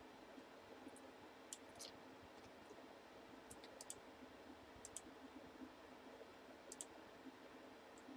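Faint computer mouse and keyboard clicks in near silence: about a dozen scattered clicks, some in quick pairs, over a faint steady hum.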